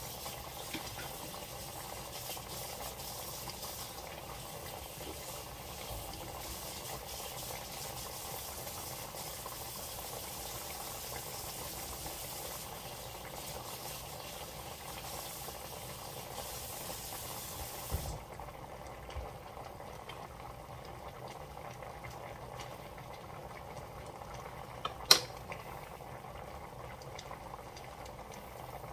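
Sauce with beef short ribs at a steady boil in a stainless steel sauté pan, bubbling and hissing as it reduces. About two-thirds of the way through the higher part of the hiss drops away. Near the end a single sharp knock is the loudest sound.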